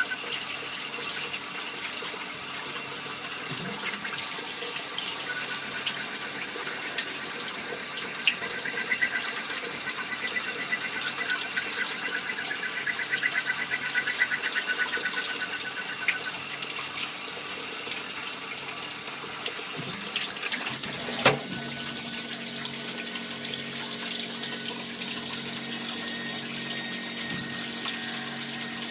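Small-diameter automatic lathe at work: cutting fluid pouring and splashing over the work in a steady wash, with light ticking and machine tones. About two-thirds of the way through there is one sharp clack, after which a steady low hum joins in.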